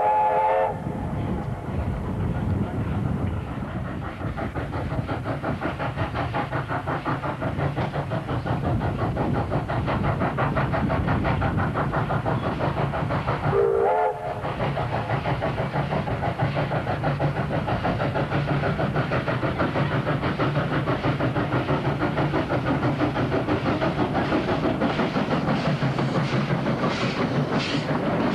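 Steam locomotive K160, a Victorian Railways K-class 2-8-0, working a passenger train with a steady, rapid chuffing beat. Its whistle is just dying away as the chuffing builds, and it gives a second short whistle about fourteen seconds in.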